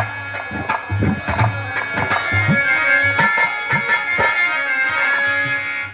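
Live folk-theatre music: a hand-played barrel drum (dholak) beating a quick, uneven rhythm with deep thumps, and a sustained melody of held notes coming in over it about a second in.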